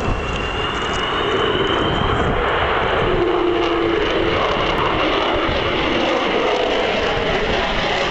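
Avro Vulcan XH558's four Rolls-Royce Olympus turbojets making their characteristic howl in a flypast: loud, steady jet noise. A high whine rises slightly in the first two seconds, and a brief lower tone sounds about three seconds in.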